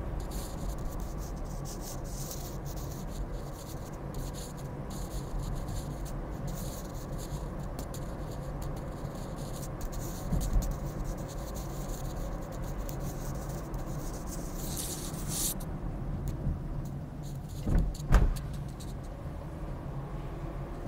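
Steady road and engine noise of a moving car heard from inside its cabin, with two brief thumps a few seconds before the end.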